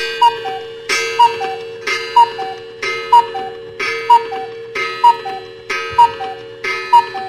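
Ticking-clock sound effect marking a skip in time: a sharp tick about once a second, each followed by a short falling two-note blip, over a steady tone.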